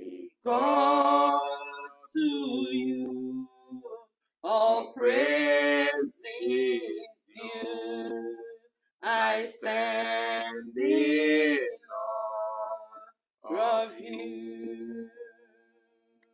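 Unaccompanied voices singing a worship chorus, in held phrases with short breaks between them, fading away near the end.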